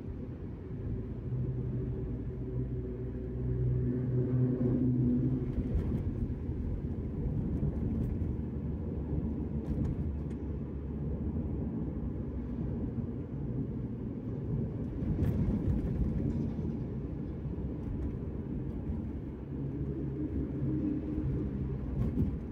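Engine and road rumble heard inside the cabin of a Daihatsu Terios (1.5-litre four-cylinder) while driving on a highway. The engine hum grows louder from about one to five seconds in and again near the end, with a few faint ticks.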